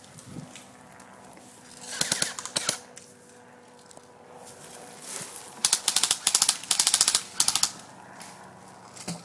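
Airsoft electric guns firing full-auto bursts of rapid clicking shots: one burst about two seconds in, then several more bursts in quick succession a few seconds later.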